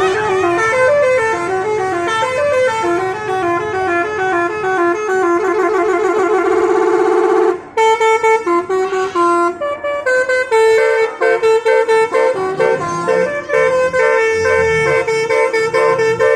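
Indonesian 'telolet basuri' bus horn playing a fast melody of stepped horn notes, with a rapid trill about five seconds in. After a brief break it goes on in short staccato notes with a few held ones.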